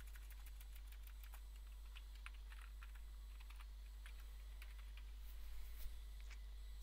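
Computer keyboard being typed on in short, irregular runs of quiet key clicks, over a steady low hum.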